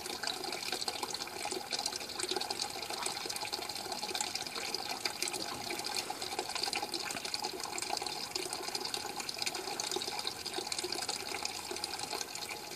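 Water draining steadily from a hanging five-gallon bucket through a gravity-drain solenoid valve and pouring into a bucket below, as the bucket nears the end of its drain.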